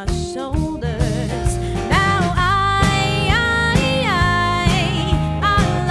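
Live band music: a woman singing a slow melody over strummed acoustic guitar and a low bass line.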